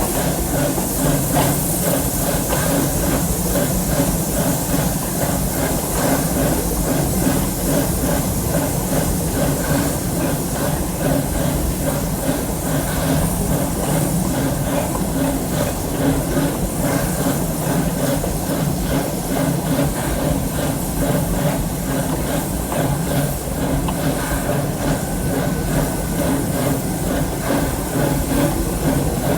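Park steam train running along its track, heard from aboard: a steady hiss over a low rumble, with fine rapid clatter throughout.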